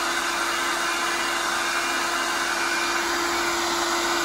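Handheld hair dryer running steadily, blowing hot air onto the compressor at the back of a small fridge: an even rush of air with a constant hum.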